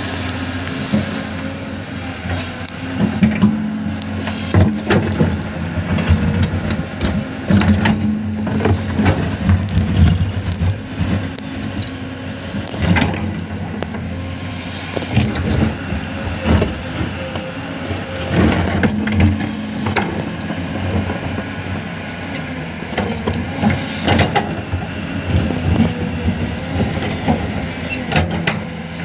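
Diesel engine of a hydraulic excavator running steadily, with repeated knocks, scrapes and clatter of rock as the bucket works through the rocky ground.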